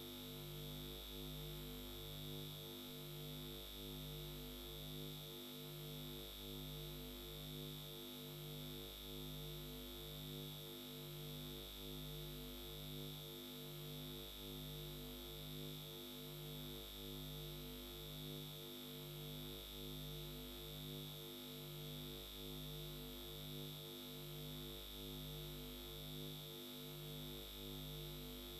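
Faint electronic hum of steady tones, pulsing evenly a little more than once a second, with a constant thin high whine above it.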